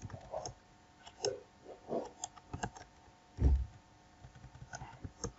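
Computer keyboard being typed on, scattered irregular key clicks as code is pasted and edited, with one duller, louder thump about three and a half seconds in.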